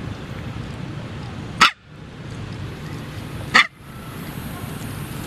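Two short, sharp animal barks about two seconds apart, over a steady low rumble.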